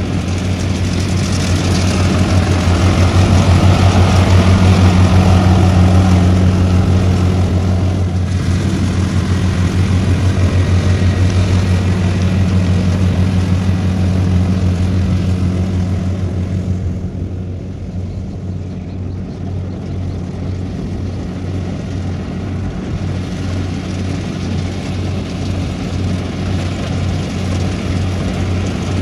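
Kubota combine harvester's diesel engine and threshing machinery running steadily under load as it cuts and threshes rice, a continuous low drone with clatter. It is loudest in the first several seconds and eases a little past the middle.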